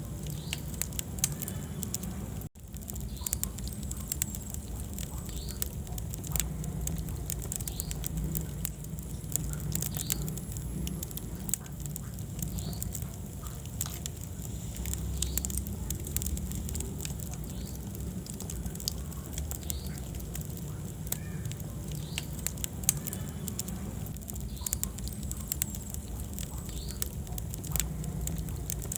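Wood fire burning in a fireplace, crackling with many sharp pops over a low steady rumble of the flames, with a brief drop-out about two and a half seconds in.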